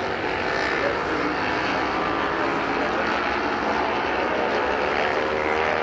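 Several road-racing motorcycle engines running hard at high revs, blending into one steady drone whose pitch wavers as the bikes accelerate and shift.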